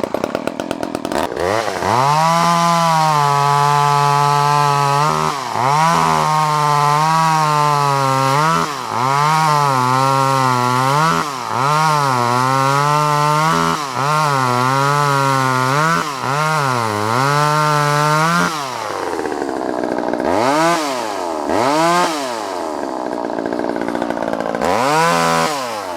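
Vintage Poulan 1800 Woodsman two-stroke chainsaw starting up, then running at high speed for most of the time with repeated brief drops in pitch. Near the end it falls back to a lower idle, with a few short revs.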